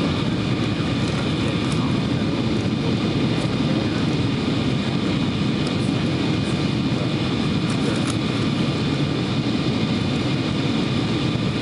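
Steady cabin roar of a Boeing 777-200 descending on approach, heard from a window seat inside the cabin: the twin-engine jet's engine and airflow noise, deep and even, with a faint steady whine on top.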